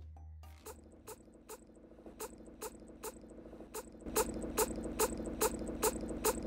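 Automatic cat feeder dispensing after a button press: a steady motor hum with regular clicks, about two a second, louder from about four seconds in.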